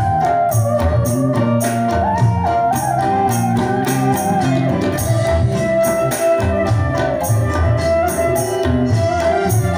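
Live band playing: a side-blown flute carries a held, stepping melody over electric bass, electric guitars and hand drums struck in a steady beat.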